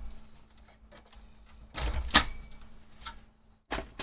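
Sheet-metal clanks and rattles as the hinged drive cage of an HP ProDesk 400 G6 small-form-factor case is swung down and seated over the motherboard. There is a knock at the start, the loudest clack about two seconds in, and two more knocks near the end.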